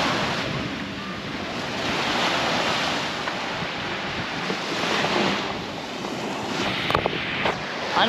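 Small waves washing onto a sand beach, the surf rising and falling every couple of seconds, with wind buffeting the microphone. A couple of brief clicks near the end.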